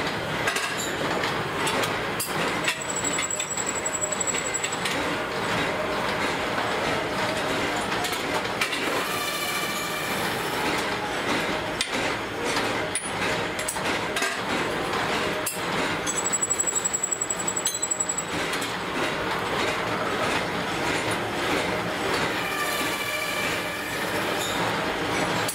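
Steady clattering din of metalworking machines running in a sprocket workshop, with scattered sharp metal clinks as steel sprockets and a roller chain are handled.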